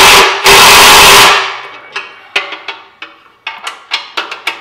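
Milwaukee Fuel cordless impact driver hammering bolts tight: a loud continuous run of impacts for the first second or so that trails off, then a series of short, sharp knocks.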